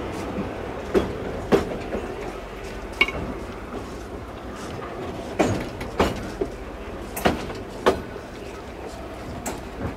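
Railway wagons rolling along jointed narrow-gauge track: a steady rumble broken by sharp clacks as the wheels cross the rail joints, mostly in pairs about half a second apart.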